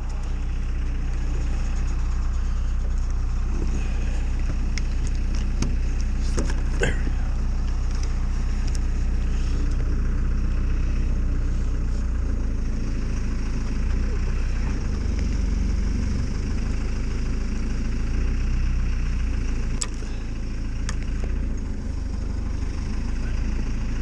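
Telehandler's diesel engine running steadily, with a few scattered sharp clicks and knocks.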